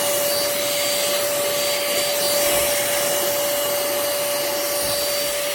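Pemacom cordless handheld vacuum cleaner running steadily: a constant motor whine over an even hiss of air.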